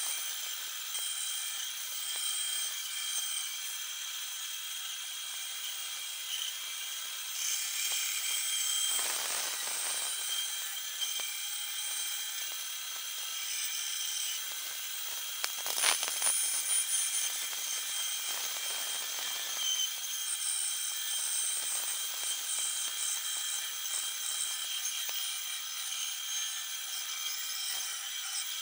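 Bandsaw running and cutting a thick block of wood along a curved template line, a steady hiss from the blade with a high whine over it. A single sharp click about halfway through.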